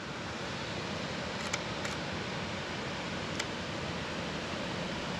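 Nikon D850 DSLR shutter firing on a 2-second self-timer: two faint clicks less than half a second apart, about a second and a half in, opening and closing on a 1/3-second exposure. One more faint click follows a second and a half later, over a steady background hiss.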